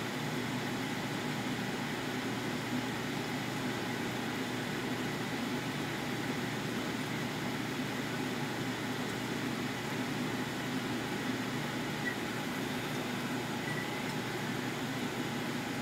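Steady, unchanging mechanical hum with hiss, like a running fan, with a faint steady whine above it.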